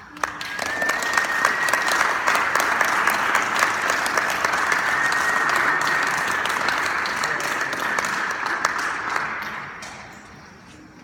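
Audience applauding at the close of a speech: many hands clapping, swelling within the first second, holding, then dying away near the end.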